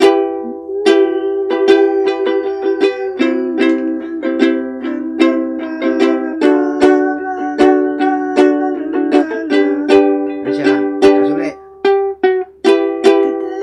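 Ukulele strummed in a steady rhythm through the chords E minor, C and G, several strokes a second with each chord ringing between strokes. There is a brief pause near the end at a chord change.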